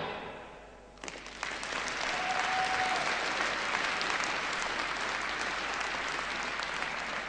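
Arena audience applauding, breaking out about a second in as the last chord of the program music dies away, then holding steady.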